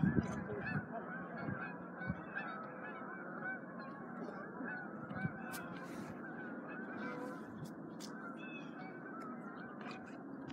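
A large flock of geese honking, many calls overlapping in a continuous chorus.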